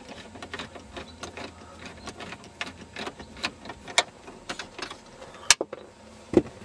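Small irregular clicks and taps of a screw being taken out of the plastic instrument-cluster surround of a car dashboard, with a sharper click about five and a half seconds in.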